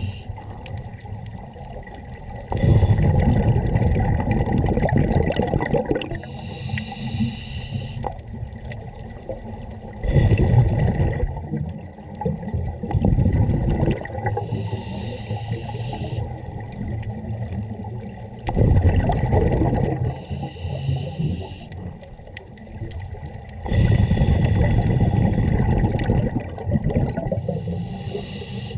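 Scuba diver breathing through a regulator underwater: a hiss on each inhale, then a loud burst of exhaled bubbles. The cycle repeats about four times, roughly every 5 to 8 seconds.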